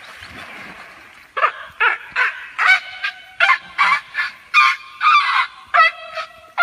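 Wild Asian elephant calling loudly in a rapid run of short, honking trumpet blasts, nearly three a second, after about a second of water splashing around it.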